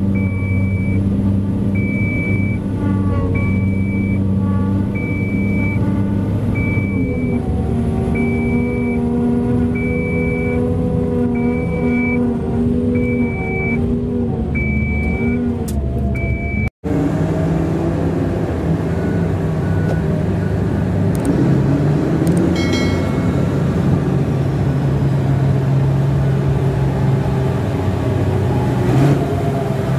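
Mining haul truck's diesel engine running with a backup alarm beeping about once a second, heard from the cab. Partway through, the sound cuts off abruptly and restarts as a steady diesel engine drone with no beeping.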